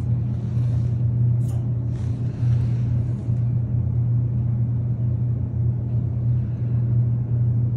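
Steady low mechanical hum running without change, with a few faint brief rustles about one and a half and two seconds in.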